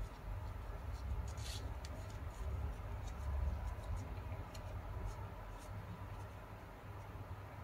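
Origami paper rustling and clicking as the flaps of a folded paper ninja star are tucked in and handled, with a few short crisp clicks, the loudest about a second and a half in. A low steady hum runs underneath.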